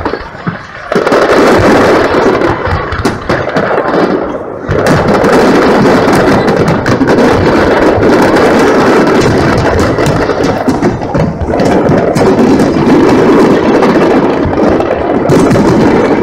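Large aerial fireworks display: shells bursting in rapid, overlapping succession, booms and crackles running together almost without a break, loud, with a short lull about half a second in.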